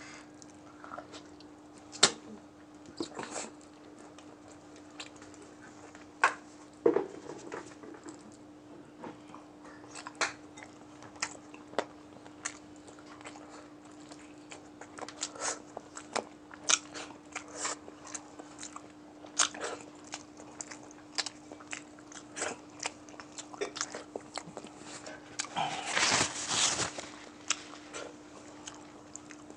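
Close-miked eating: chewing and crunching of crispy fried chicken neck and rice, with sharp mouth clicks and smacks at irregular moments and a denser, louder spell of crunching near the end.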